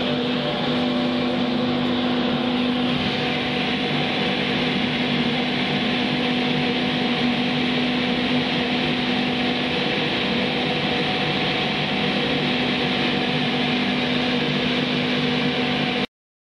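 Class 91 electric locomotive of an East Coast InterCity 225 standing at the platform, giving a steady hum with a few held tones. The sound cuts off suddenly near the end.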